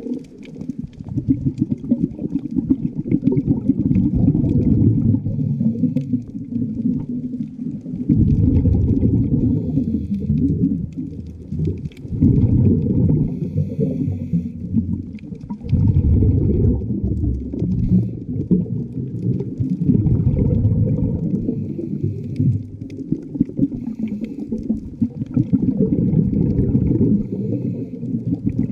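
Muffled underwater rumble heard through a camera's waterproof housing, swelling in long surges every few seconds and dipping briefly between them.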